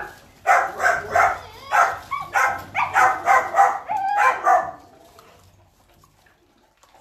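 Retriever-mix puppies barking: about nine sharp barks in quick succession over roughly four seconds, then quiet.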